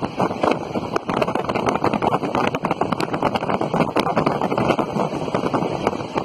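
Running noise of a moving train heard from an open side door: continuous rumble and rattle of wheels on rail, full of quick irregular clacks, with wind buffeting the microphone.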